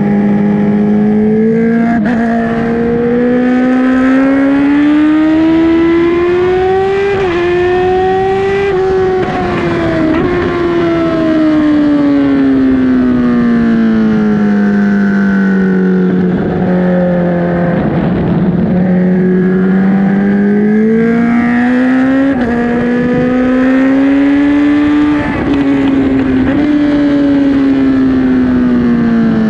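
2008 Kawasaki ZX-10R's inline-four engine pulling hard on a race track, its pitch climbing with a short dip at each upshift, then falling steadily for several seconds as the bike slows. It climbs again through two more upshifts and eases off near the end, with wind rush underneath.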